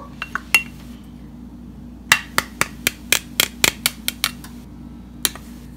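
Fingers tapping the bottom of an upturned Corningware ceramic ramekin over a pot, knocking the last of the cornstarch out of it. After a few light clicks comes a quick run of about ten sharp taps, roughly four a second, and then one last tap near the end.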